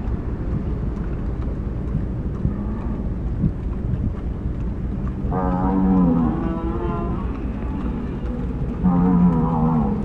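A herd of cattle on the move, mooing: two long moos, the first about five seconds in and lasting roughly two seconds, the second near the end, over a steady low rumble.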